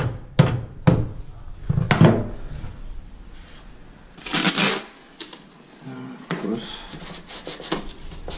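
A rubber mallet knocks about four times on a glued laminate stair nose, seating it so it doesn't lift. Then masking tape is pulled off the roll in rasping strips and torn, taping the nose down while the glue sets.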